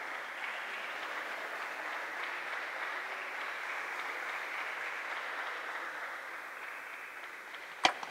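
A steady wash of applause-like noise in the sports hall, easing off near the end. Just before the end comes one sharp click of a table tennis ball being struck as the next rally starts.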